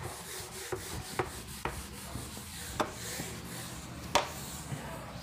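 Steady scratching and rubbing of writing on a surface, broken by four sharp taps.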